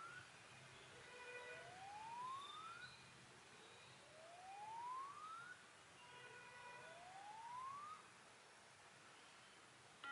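Faint electronic test tone from a Samsung Galaxy A12 in its *#0*# hardware test mode: a rising sweep repeating about every two and a half seconds, four times, with faint steady tones between the sweeps. It is the phone's own speaker test playing.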